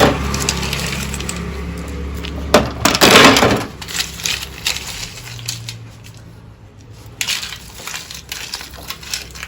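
Ice cubes cracking and clattering as they are broken into small pieces and dropped into an air cooler's plastic ice container, with the loudest rattling burst about three seconds in and scattered smaller clicks after. A low hum runs under the first few seconds.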